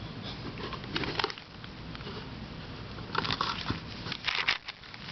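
Hard plastic puzzle pieces clicking and rattling as a Witeden super 3x3x6 twisty puzzle is handled and turned, with a cluster about a second in and a busier run of clicks in the second half.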